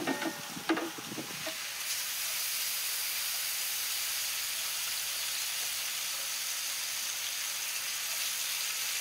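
Sliced beef tripe scraped off a wooden board into a hot cauldron, with a few knocks and scrapes of the skimmer in the first second or so. Then steady sizzling as the tripe fries in butter.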